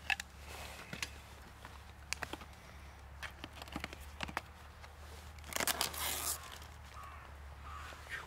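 Knife point stabbing and slitting the plastic film lid of a food tray, a scatter of sharp clicks and crinkles, then the film ripped and peeled back with a louder crackling tear about five and a half seconds in.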